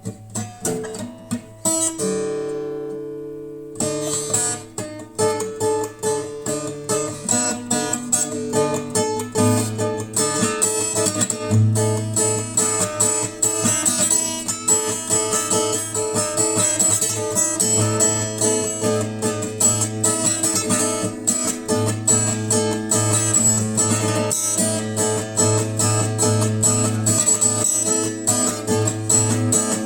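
Instrumental music on acoustic guitar, strummed and picked at a steady pace. About two seconds in, one chord is left to ring for a moment before the playing picks up again.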